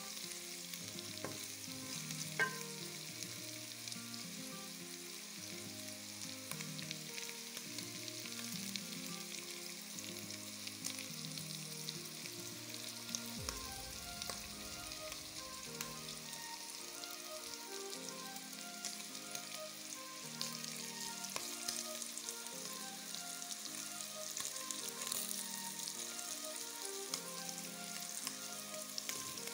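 Beef chunks, capsicum and onions sizzling in hot oil in a pot, with a steady crackling hiss and occasional sharp pops. They are stirred now and then with a wooden spoon as the meat browns.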